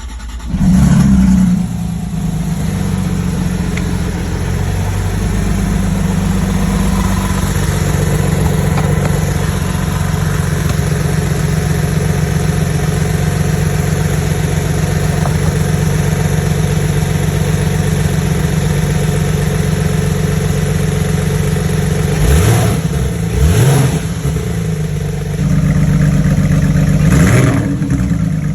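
Porsche 991.1 flat-six engine starting with a loud surge, then idling steadily. It gives two quick throttle blips about two-thirds of the way through and a held higher rev near the end. The engine has a misfire, which the owner puts on cylinder 2 (code P0301).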